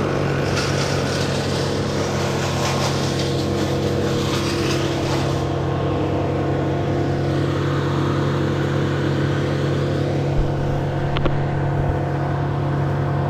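An engine running steadily at one constant speed, with a harsher, noisier edge over the first five seconds or so that then eases off, and a couple of short knocks late on.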